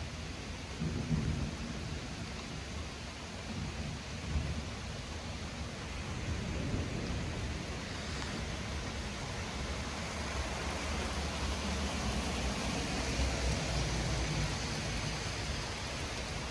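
Thunder rumbling low under steady rain, with louder swells about a second in and again about four seconds in. The rain grows heavier through the second half.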